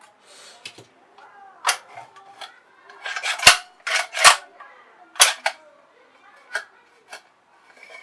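A series of sharp clicks and knocks from handling the fingerprint lock's hard plastic battery cover and panel, irregular, with two louder knocks near the middle.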